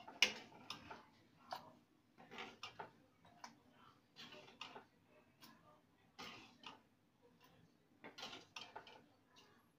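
A spoon scraping and knocking against a cooking pan in irregular short strokes as the thick curry is spooned out into another dish.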